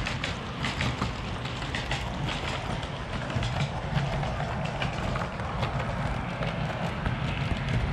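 A 00 gauge model train running along the track: a steady low motor hum with frequent irregular clicks from the wheels on the rails.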